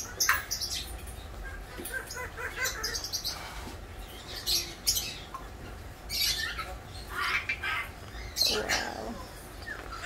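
A Moluccan cockatoo being petted: its feathers rustle under the stroking hand, with short, soft bird sounds scattered through and a fuller one near the end.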